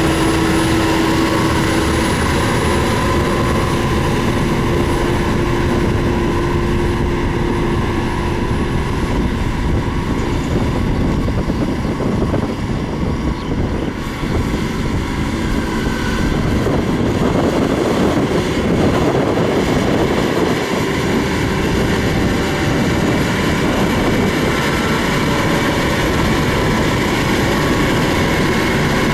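LiuGong motor grader's diesel engine running steadily under load while grading a dirt road.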